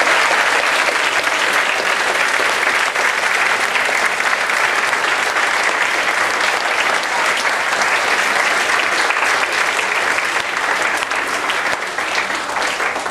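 An audience in a hall applauding steadily, a dense mass of clapping hands that thins a little near the end.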